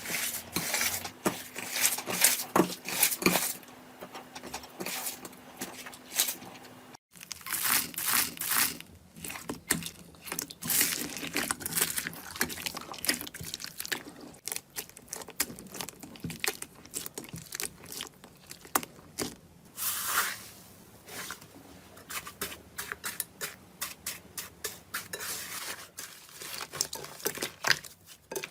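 Slime being squeezed, stretched and poked by hand, giving dense quick crackling and popping clicks. The sound breaks off briefly about seven seconds in, and a faint steady hum under the first part stops there.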